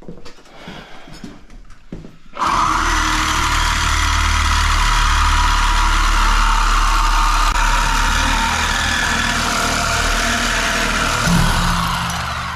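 Power saw cutting through oil-tank piping. It starts suddenly a couple of seconds in, runs steadily for about ten seconds and tails off near the end.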